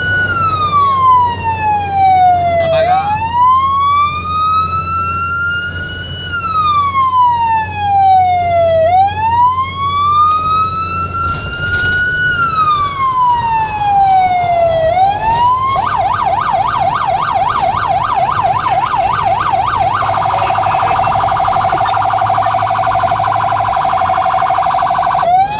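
Electronic siren of an emergency vehicle on a run, heard from inside the vehicle. It plays a slow wail rising and falling about every six seconds, switches about 16 seconds in to a fast yelp, changes about 20 seconds in to a rapid warble, and returns to the wail near the end. A low steady engine and road hum runs underneath.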